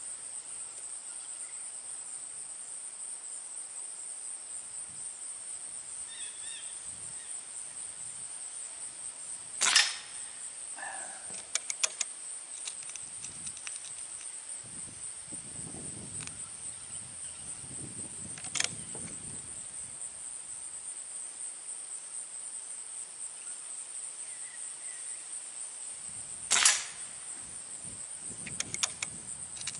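Two shots from a Diana Trail Scout .177 CO2 air rifle, about 17 seconds apart, with a few lighter clicks between and after them, over a steady high buzz of insects.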